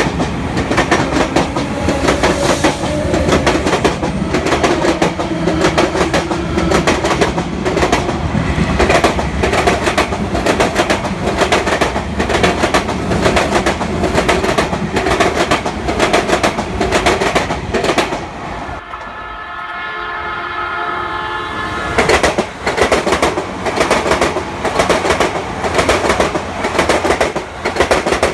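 Train wheels clattering rapidly over rail joints at a level crossing, a dense run of clicks. About 19 seconds in the clatter breaks off and a held tone with several pitches sounds for about three seconds, then the clatter resumes.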